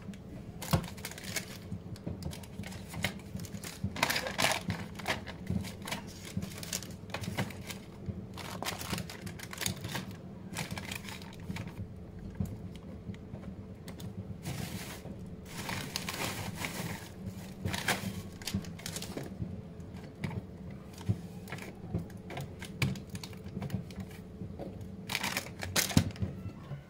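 Household items being handled during kitchen cleaning and tidying: irregular light clicks, knocks and rustling, over a faint steady hum.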